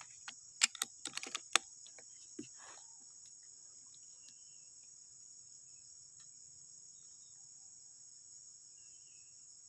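Insects droning in a steady high-pitched whine, with a quick run of sharp clicks in the first second and a half.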